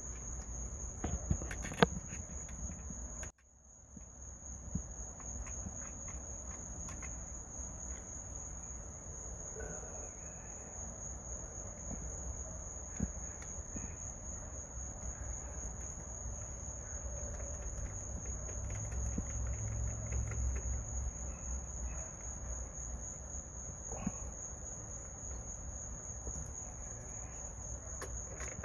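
Steady high-pitched insect trilling, with scattered small clicks and knocks from handling the wiring; everything drops out briefly about three seconds in.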